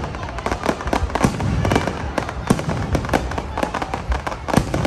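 Fireworks going off: a dense, irregular run of sharp bangs and pops, several a second, over a continuous crackling haze.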